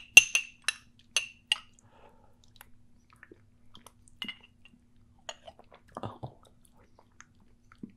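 Metal spoon clinking against a small glass baby-food jar while stirring fruit purée: five sharp clinks in the first second and a half, then fainter scattered taps and scrapes as it scoops.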